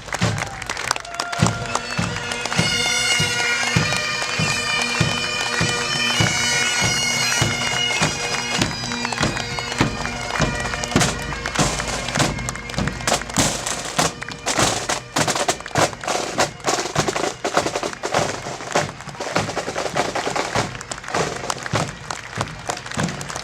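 Bagpipes playing a tune over their steady drone, with a drum beating a regular march rhythm. From about ten seconds in, crowd applause grows loud as the pipes fade.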